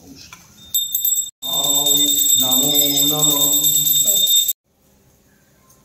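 Puja hand bell ringing rapidly over a low sustained droning tone. It starts about a second in and cuts off sharply a little past the middle.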